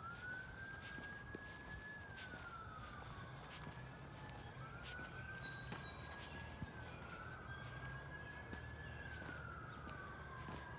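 Faint emergency vehicle siren wailing, its pitch rising quickly, holding, then sliding slowly down, about every two and a half seconds.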